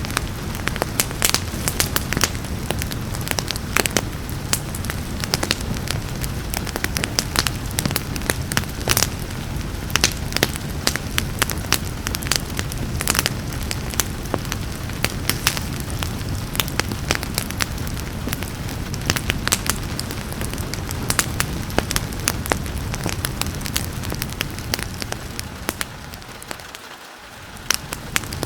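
Wood fire crackling in a fireplace, with frequent sharp pops and snaps over a steady rain hiss. Near the end the whole sound dips down briefly, then comes back.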